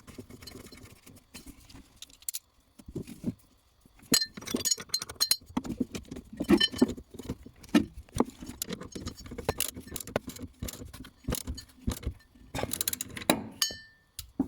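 Hand tools and metal linkage parts clicking and clinking irregularly as the short shifter is fastened to the transmission's shift linkage. A short metallic ring sounds near the end.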